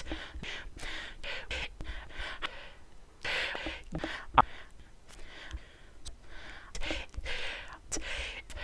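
A man breathing heavily close to a microphone: a string of loud, noisy breaths in and out, with a sharp click about four and a half seconds in.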